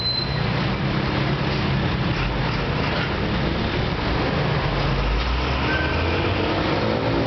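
Steady city traffic noise: a low rumble of road vehicles with a hiss of tyres, the rumble growing a little heavier about five seconds in.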